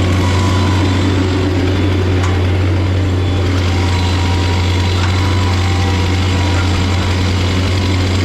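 An engine running steadily at a constant speed, with a strong low hum and no revving.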